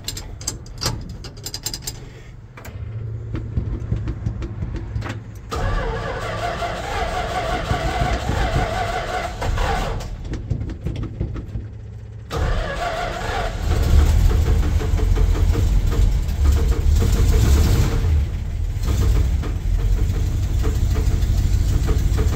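1969 Dodge W200 Power Wagon's 383 big-block V8 being started cold and running, getting louder and deeper about halfway through. The exhaust rattles from a crack in the muffler.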